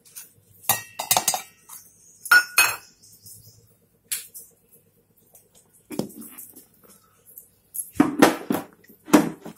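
Stainless-steel mixer-grinder jar and steel bowls clinking and knocking as pickle is put into the jar: a scattering of separate clanks, one ringing on briefly, then a cluster of knocks near the end as the jar is fitted onto the mixer base.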